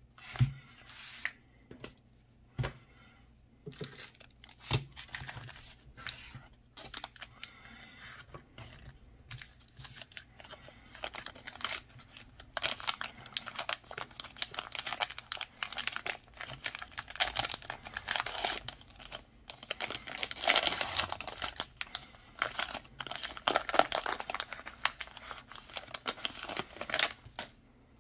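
Foil wrapper of a Panini Prizm basketball hanger pack crinkling and tearing as it is pulled open by hand. A few sharp taps of handling come in the first several seconds, then dense crinkling builds and is loudest in the second half, stopping abruptly near the end.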